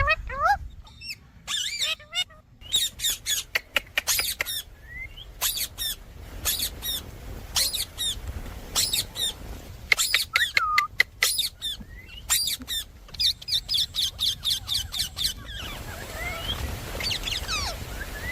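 Indian ringneck parrot calling in a rapid string of short, high-pitched squawks and chirps that sweep quickly in pitch. The calls thin out and grow fainter near the end.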